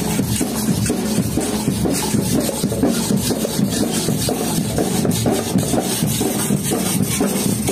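Metal güiros, cylindrical tube scrapers, scraped with sticks in a steady marching rhythm by several players at once.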